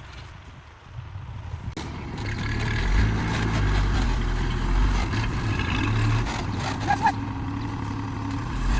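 Heavy diesel machinery running: quiet at first, then the engine noise comes in abruptly about two seconds in and builds to a steady, loud low rumble.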